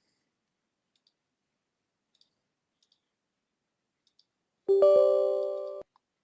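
A few faint computer mouse clicks, then near the end a loud electronic computer alert sound: several steady tones together, held for about a second, fading and then cutting off.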